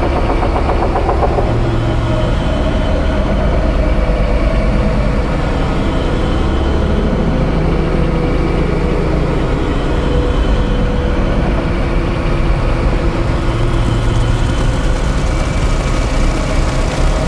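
Experimental drone and noise music played live: a loud, dense low rumble with sustained tones drifting slowly above it.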